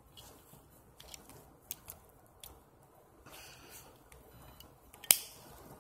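Metal ratchet strap mechanism being worked by hand as the handle is rotated to release it: faint scattered clicks and rubbing, with one sharper click about five seconds in.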